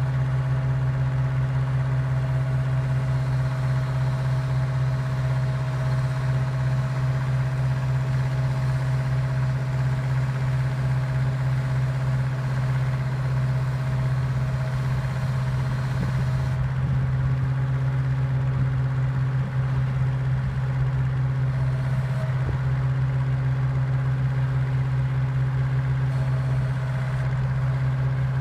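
Austin-Western motor grader's engine running steadily at an even speed.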